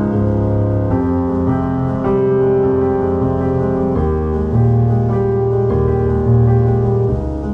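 Instrumental background music: slow, held keyboard chords that change every second or two.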